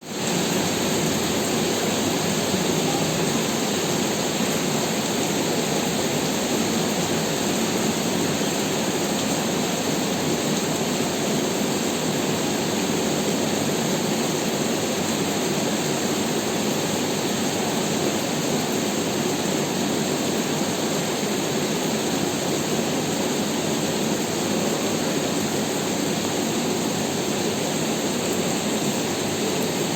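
Rain falling steadily, an even, unbroken hiss that fades in at the very start.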